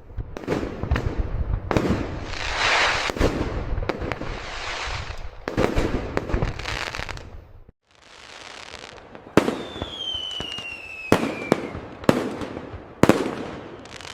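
Fireworks display: repeated sharp bangs of bursting shells with crackling, fizzing hiss between them. About halfway through the sound cuts out briefly, then a whistling firework glides steadily down in pitch for about two seconds amid a few loud single bangs.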